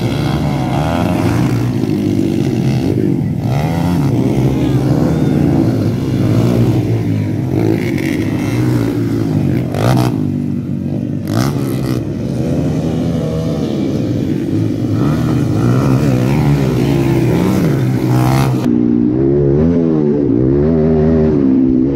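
Several motocross bikes racing on a dirt track, their engines revving up and down over the jumps. Near the end the sound changes to a single bike's engine heard close up, revving hard.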